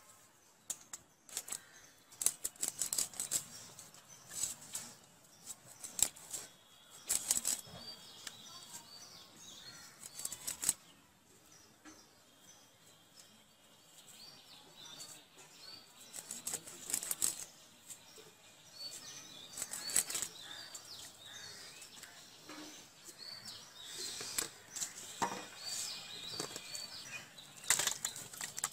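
Fish pieces being scraped against the blade of a boti, a foot-held curved Bengali kitchen blade, to take off the scales. The strokes are short and rasping, come in irregular runs, and pause between pieces.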